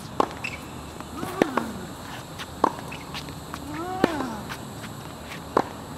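Tennis rally: a ball struck by a racquet about every second and a quarter, five sharp hits in all. The near player gives a short grunt with two of his shots.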